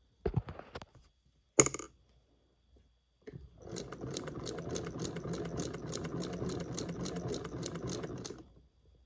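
Vintage sewing machine stitching through fabric: a steady run of needle strokes at about six a second for some five seconds, stopping shortly before the end. Before it starts, a few light clicks and one sharp knock.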